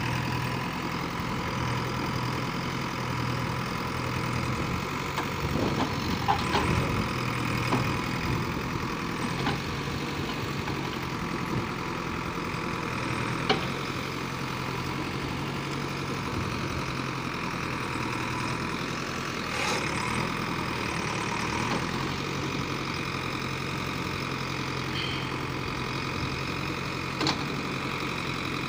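JCB 3DX backhoe loader's diesel engine running steadily while its backhoe digs, with a few sharp knocks of the bucket on earth and stones, the loudest about halfway through and near the end.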